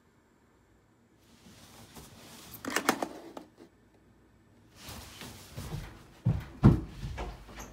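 Rustling and handling noises from bedding and a plastic bedside alarm clock being touched. There is a quick cluster of taps and clicks just under three seconds in, then more rustling with a few heavier thumps near the end.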